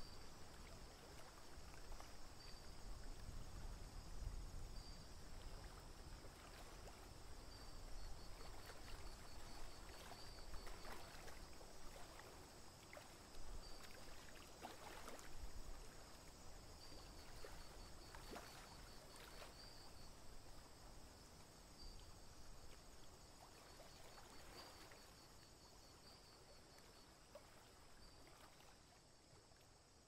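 Faint outdoor ambience of a wetland: an even, low rushing noise, with short rows of rapid high ticks recurring a few times. It fades away toward the end.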